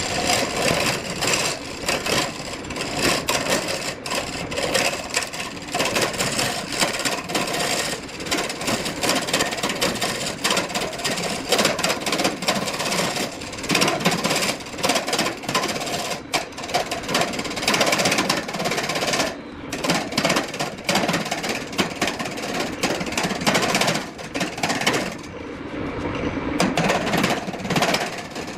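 Wood lathe turning a log while a gouge cuts into it, giving a harsh, rapid knocking and rasping. The sound eases briefly twice, about two-thirds of the way through and again near the end.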